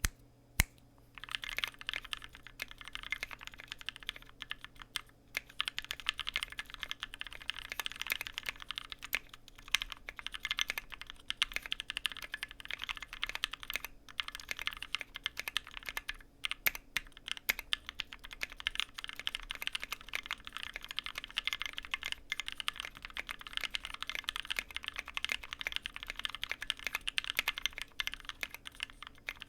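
Fast typing on a 60% mechanical keyboard with lubed, filmed Gateron Black Ink linear switches on an aluminium plate: a dense, continuous stream of keystroke clacks starting about a second in, broken by a few brief pauses.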